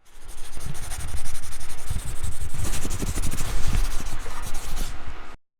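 Loud, close rubbing and scraping noise with a heavy low rumble, cutting off abruptly near the end.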